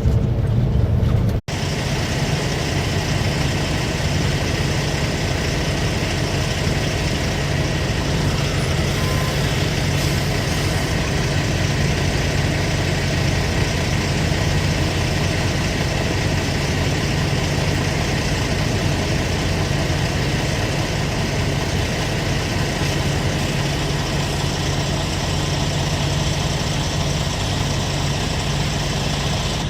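Semi truck's diesel engine running steadily, heard from inside the cab, with a brief cut in the sound about a second and a half in.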